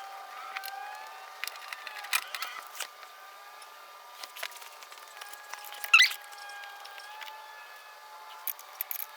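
A tool clicks and rattles on the Torx screws of a plastic engine undertray as they are backed out, with a sharper clatter about six seconds in. A faint whine slowly drifts in pitch underneath.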